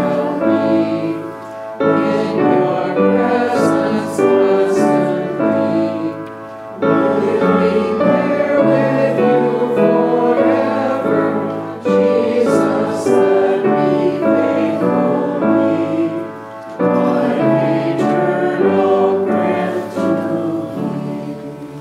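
A congregation singing a hymn with piano accompaniment, in phrases of about five seconds each with short breaths between them. The last phrase fades out near the end.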